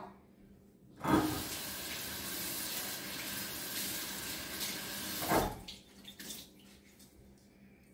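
Kitchen sink faucet running steadily for about four and a half seconds while a dish towel is soaked with cold water, then shut off; a few faint knocks follow.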